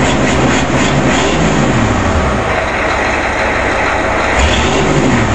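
A 1985 Ford E350's 6.9 L International IDI diesel V8 runs with a diesel clatter, its engine note rising and falling. It is a little too clattery on freshly rebuilt injectors, which, together with blue fuel smoke, the owner takes for retarded injection timing.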